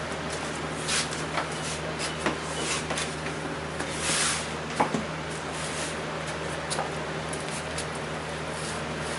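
Scattered light clicks and knocks, with a short rustle about four seconds in, over a steady low hum.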